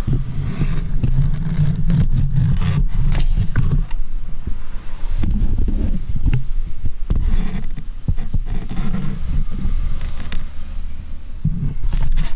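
Cardboard scraping and rustling as a kitten clambers about inside a cardboard box, with many short scrapes and clicks over low thumps and rumble from the phone brushing against the box and the kitten's fur.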